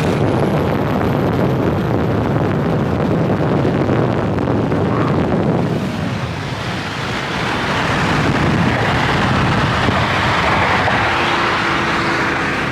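Cars running hard through a roll race on the street, heard as a loud rush of engine and road noise. Heavy wind buffets the microphone throughout. The sound eases briefly about halfway through, then builds again.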